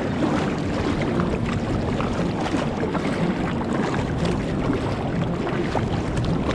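Water splashing and dripping around a kayak on a river, many small splashes over a steady low rush of moving water.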